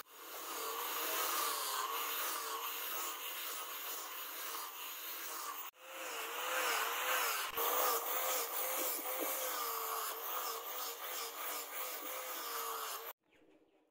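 Electric angle grinder fitted with a sanding pad, sanding a wooden knife-handle scale; its motor whine wavers in pitch as it is pressed against the wood, over a scratchy sanding hiss. The sound breaks off briefly about halfway and stops abruptly near the end.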